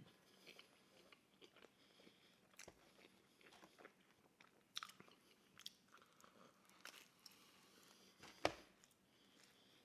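A person chewing a mouthful of pizza close to the microphone: faint, with scattered wet mouth clicks and a sharper click about eight and a half seconds in.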